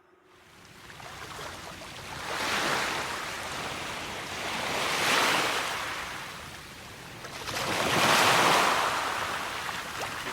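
Waves washing in, a rushing noise that swells and fades three times.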